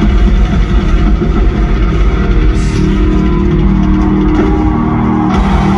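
Live heavy metal band playing loudly, with distorted guitars over a heavy, sustained low end, heard from within the crowd.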